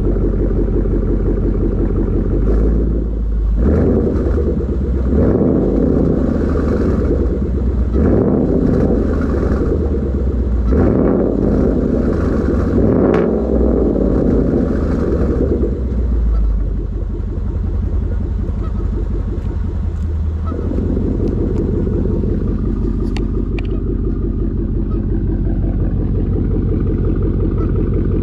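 Ford Mustang GT's 5.0-litre V8 exhaust through Roush aftermarket mufflers. It idles, is revved several times in a row over the first half, then settles back to a steady rumbling idle.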